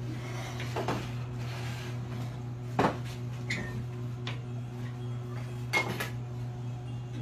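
Scattered knocks and clinks of household objects shaken by an earthquake, over a steady low hum; two louder knocks come about three and six seconds in.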